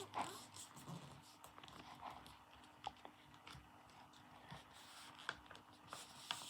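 Faint, scattered rustles and small taps of a sheet of paper being handled and folded.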